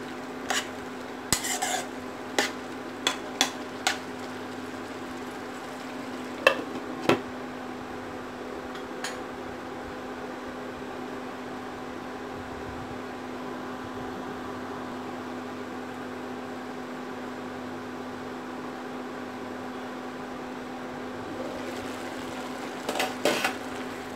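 A utensil stirring and knocking against a nonstick pan, then two loud knocks as a glass lid is set on the pan about six to seven seconds in. Then a steady low hum and a faint simmer while the food cooks covered. Near the end comes more clatter as the lid comes off and stirring starts again.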